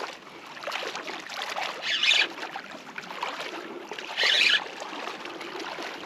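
Water splashing and sloshing in short hissing surges about every two seconds, four times, over a steady low wash.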